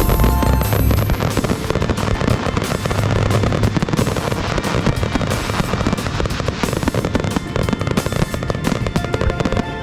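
Starmine fireworks finale: a dense, continuous barrage of aerial shell bursts and crackling, many sharp reports a second with no pause.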